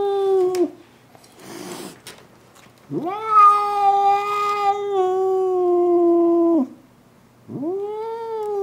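Domestic cat caterwauling in anger at a rival cat: long, steady, drawn-out howls. One howl ends just after the start, a short hiss follows, then a howl of nearly four seconds, and another begins near the end.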